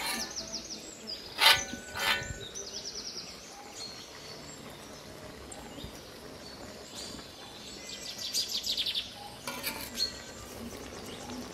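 A metal ladle clanks twice against an iron wok about a second and a half and two seconds in, with quieter scraping and knocks as vegetables are stirred. Small birds chirp in quick trills throughout.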